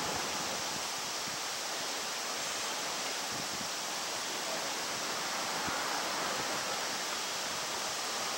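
Steady, even hiss of an Izukyu 8000 series electric train rolling slowly in on the curved approach track.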